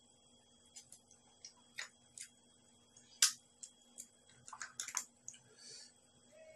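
Scattered small clicks and taps of clam shells against a plate while stir-fried clams are picked up by hand and eaten, with a sharper click about three seconds in and a few quick clicks near five seconds, then a brief soft sucking sound.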